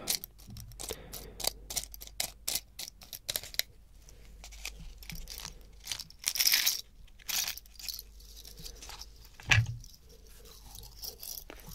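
A thin wooden stick tapping and scratching on a small wooden block close to the microphone, giving a quick run of sharp clicks over the first few seconds. After that come softer rustling and handling sounds, and one dull thump late on.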